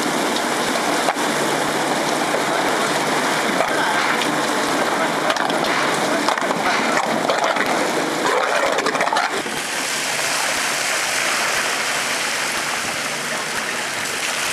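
Muddy water splashing and churning as a tracked dredge ROV works in its tank. About nine seconds in it gives way to a steady rush of dredged slurry pouring out of the discharge hose.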